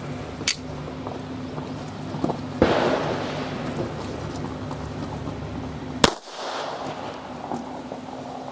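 A short click about half a second in, then two shots from a Polish P-83 pistol firing Wolf steel-case ammunition, about three and a half seconds apart, each a sharp crack with a brief echo. The pistol is being test-fired after a recoil-spring replacement meant to cure its failures to return to battery.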